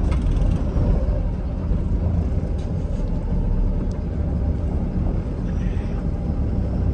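Diesel truck engine running and tyre and road rumble, heard inside the cab while the truck drives slowly through a junction; a steady low rumble throughout.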